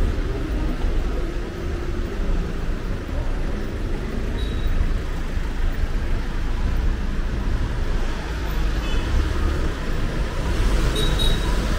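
City street traffic: a steady rumble of passing cars and other road vehicles.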